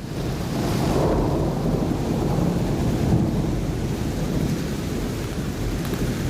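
Rain with rolling thunder from a recorded thunderstorm effect, swelling in from silence over the first second and then holding steady.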